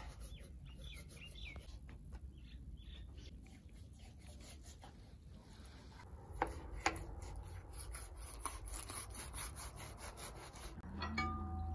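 Kitchen knife cutting and scraping fat off a raw beef heart on a wooden cutting board: quiet rubbing, scraping strokes, with two sharp knocks against the board about six and a half seconds in. A steady low rumble underlies it and grows louder near the end.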